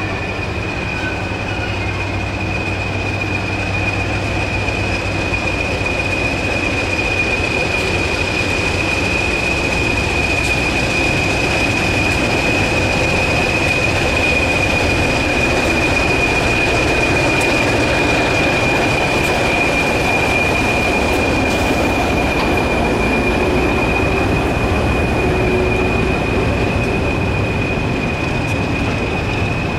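BR Class 20 English Electric diesel locomotive running past with its train of coaches. A steady high-pitched whistle sits over a continuous rumble of engine and wheels.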